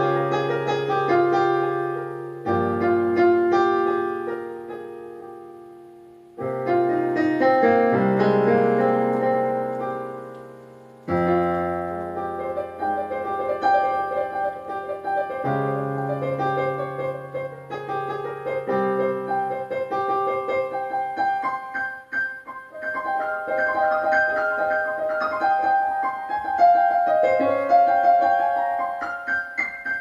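Micropiano played in slow improvisation: low chords struck and left to ring and fade, the sound dying almost away twice before the next chord. From about twenty seconds in, a busier run of higher notes plays over held chords.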